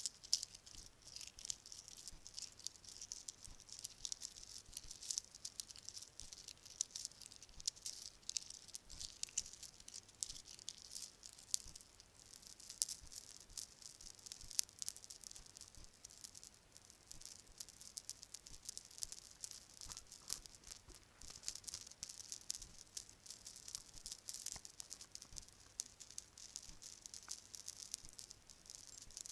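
Bracelets being handled and shaken close to the microphone: a dense, continuous rattle of many small clicks as the pieces knock against each other.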